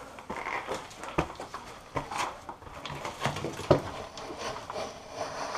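Irregular knocks and scuffs of shoes on the wooden rungs of a ladder as a person climbs it, with some rustling.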